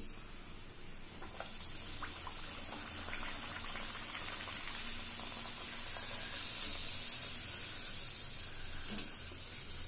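Bhatura (rolled maida dough) deep-frying in hot oil in a kadhai: a steady, high-pitched sizzle that comes up about a second and a half in as the dough goes into the oil and holds while it puffs up. The oil is hot enough, tested beforehand with a dough ball that rose at once.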